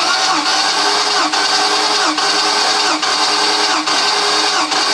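MerCruiser 7.4 L (454) big-block V8 being cranked on its starter motor with the spark plugs out, during a compression test: a loud, even starter whine whose pitch dips and recovers at a regular beat as the engine turns over.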